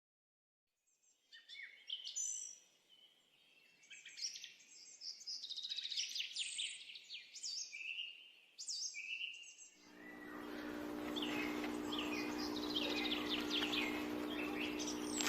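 Songbirds chirping and singing in quick, varied phrases, starting about a second in after a moment of dead silence. About ten seconds in, a steady low hum and a hiss join beneath the birdsong.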